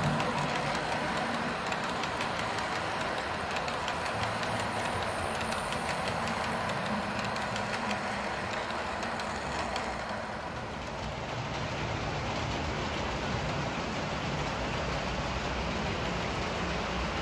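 Model trains running on the layout's track: a steady hiss of wheels and motors with faint clicking of wheels over the rails.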